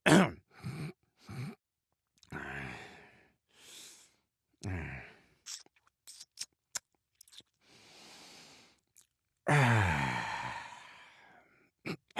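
A man's voice making a string of wordless dad noises: short grunts and groans, a run of small mouth clicks, a breathy sigh, and a long groan falling in pitch about ten seconds in.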